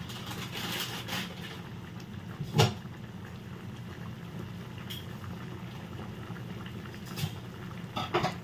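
Pan of vegetable and noodle soup simmering, its broth bubbling gently, over a steady low hum. A few scattered knocks sound through it, the loudest about two and a half seconds in.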